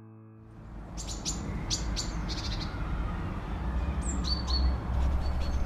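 Small birds chirping, a few quick high chirps at a time, with one call falling in pitch near the end, over a steady low outdoor rumble that fades up from silence just after the start.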